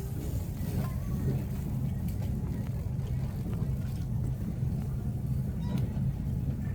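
Shopping cart being pushed, its wheels giving a steady low rumble across the floor, with a few faint rattles and clicks.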